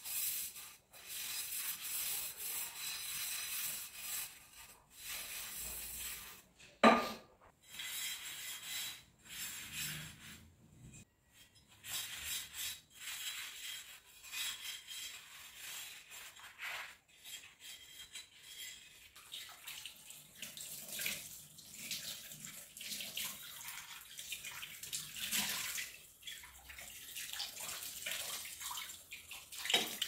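Kitchen tap water running into a sink and splashing over pans as they are washed and scrubbed with a sponge, the water starting and stopping in stretches. A single sharp knock about seven seconds in is the loudest sound.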